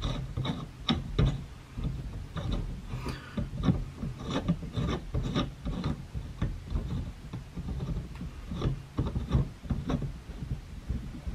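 Fastener being screwed up by hand through a wooden block under the bench to clamp a homemade plywood vise down: irregular wooden rubbing and small knocks, a few a second.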